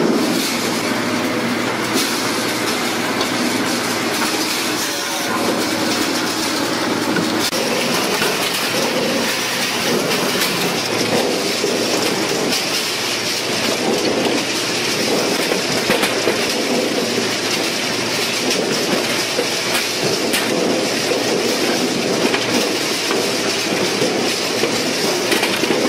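Firewood-handling machinery running with a steady, dense clatter of wood knocking on metal: split firewood tumbling in a rotating cage drum, then split logs riding up a cleated conveyor.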